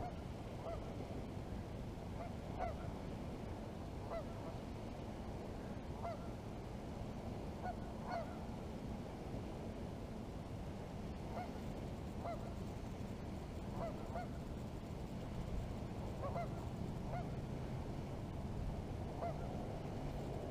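Waterfowl giving short calls, roughly one a second and often in pairs, over a steady low background rumble.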